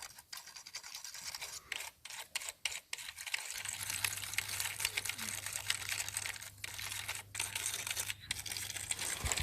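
A brush scrubbing over a dirty computer keyboard, a continuous scratchy rustle of bristles broken by many brief pauses.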